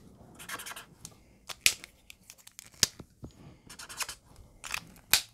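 Stampin' Blends alcohol marker tip scratching across cardstock in short swatching strokes, with a few sharp clicks between the strokes.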